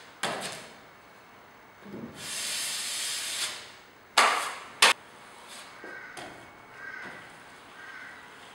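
Steel drywall knife scraping base compound along a ceiling corner bead in a long hissing stroke. Two quick, loud scrapes follow as the blade is wiped on the hawk, and then fainter knife strokes.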